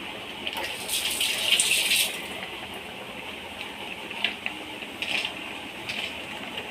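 Liquid coconut paste being poured into a pot of simmering chicken curry: a rushing gush for about a second, then quieter with a few light knocks.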